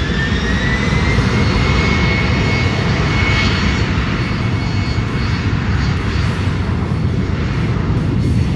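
Twin turbofan engines of a J-AIR Embraer E190 at takeoff power during its takeoff roll. A whine rises in pitch and levels off about a second and a half in, over loud, steady engine noise.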